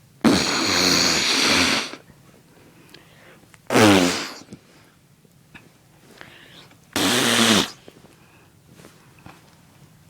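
Three loud fart sounds, the first lasting over a second and a half, the second short with a falling pitch, the third about half a second.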